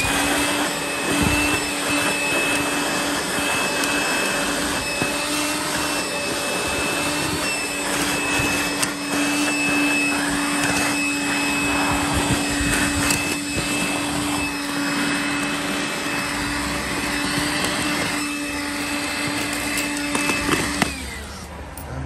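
Makita cordless handheld vacuum cleaner running steadily with a motor whine and airflow rush, sucking up brick dust from freshly drilled holes. It winds up at the start and spins down about a second before the end.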